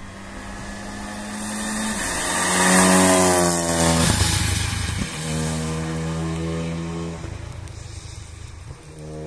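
Rally car engine accelerating hard past, its pitch climbing and breaking off at each upshift, loudest about three seconds in, then pulling away through further gears.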